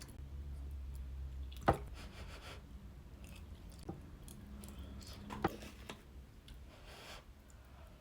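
Quiet chewing of a mouthful of creamy microwave fish pie with mashed potato, with soft wet mouth sounds. Two sharp clicks, one near the start and one past the middle, sound over a low steady hum.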